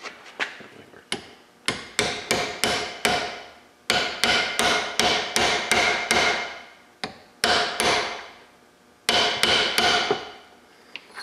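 Hammer tapping a tool into the end of a metal transmission cooler line to flare it out, making a lip for a hose. The quick runs of sharp metal-on-metal strikes, about three a second, come with short pauses between runs, and each strike rings on briefly.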